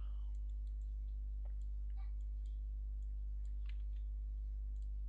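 Steady low electrical hum from the recording setup, with a few faint computer mouse clicks scattered through it.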